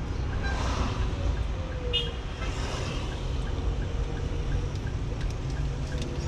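Steady low rumble of a car's engine and tyres heard from inside the cabin at low speed, with a faint light ticking about twice a second.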